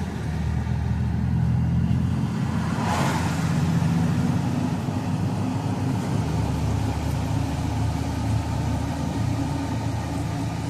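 A car driving, its engine and road noise heard from inside the cabin as a steady low hum. A brief whoosh comes about three seconds in.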